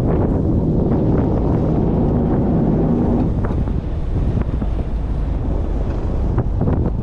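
Wind buffeting the microphone aboard a fishing boat at sea, a steady loud rumble with sea and boat noise underneath.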